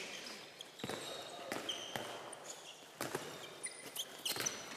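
Handballs bouncing and thudding on the wooden sports-hall floor, a few irregular thuds, with short high squeaks of sports shoes on the court.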